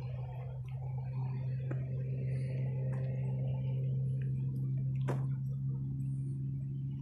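A steady low hum that holds one pitch throughout, with a few light clicks over it; one sharper click comes about five seconds in.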